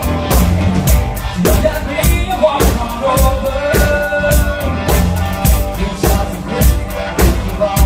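Live band playing, with the drum kit keeping a steady beat under amplified guitar and bass. A melodic line holds a note through the middle.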